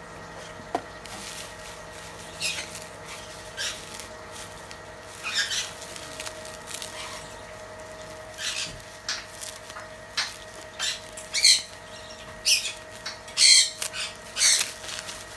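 Plastic packaging crinkling and rustling as it is handled, in short irregular crackles that come thicker and louder in the second half, over a faint steady hum.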